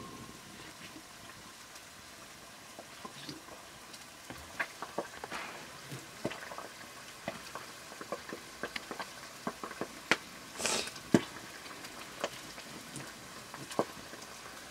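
Wood fire crackling in an open hearth: irregular sharp pops and clicks over a steady hiss. A brief louder hiss and a sharp pop come about ten to eleven seconds in.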